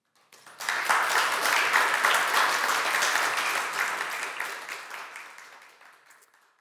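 Audience applauding. The clapping starts about half a second in, swells quickly to full, and dies away gradually over the last few seconds.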